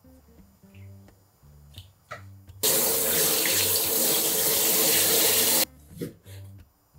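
Kitchen sink tap turned on full, running for about three seconds over gloved hands, then shut off suddenly. A few cleaver strokes on a plastic cutting board come before and after it.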